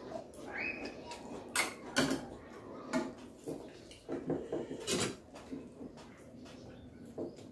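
Metal spoon clinking against ceramic bowls and plates, several sharp separate clinks, along with the mouth sounds of someone eating.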